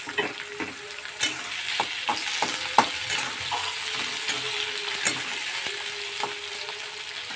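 Sliced onions sizzling in hot oil in a kadai as they are stirred with a spatula. A steady frying hiss runs under scattered sharp clicks and scrapes of the spatula against the pan.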